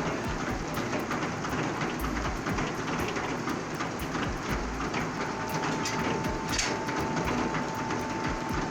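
Steam-powered sawmill machinery running, with a dense clatter and rattle. About five seconds in a steady high tone comes in and holds.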